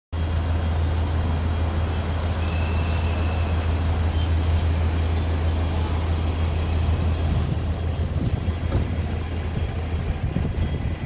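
Steady low rumble of road vehicles and traffic around a busy car park, with no single event standing out.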